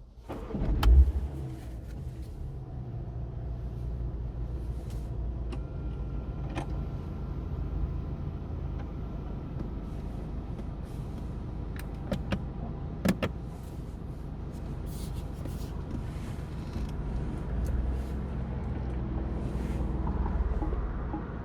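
Mini Cooper Cabrio's engine starting with a loud burst about a second in, then idling steadily. A few sharp clicks near the middle.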